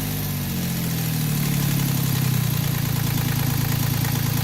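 Yanmar 3GM three-cylinder marine diesel running. Its speed falls over the first couple of seconds and then settles to a steady idle.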